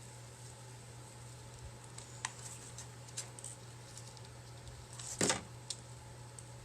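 Faint handling sounds from hands working craft materials while gluing: a few light ticks and one short rustle about five seconds in, over a steady low hum.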